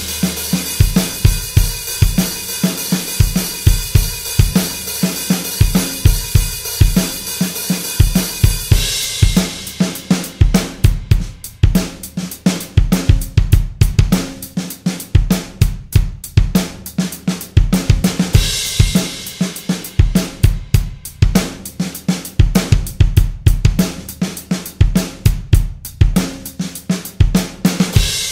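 Electronic drum kit played hard, with fast double-kick bass drum strokes from a PDP 502 double pedal under snare hits. A crashing cymbal wash rides over the first third and comes back briefly past the middle.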